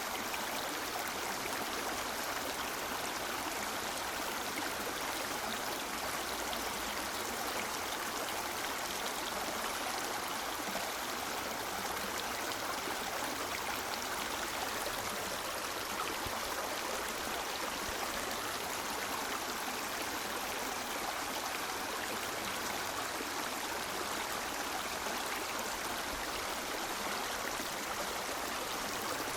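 River water flowing steadily over rocks, an even rushing and babbling with no pauses or changes.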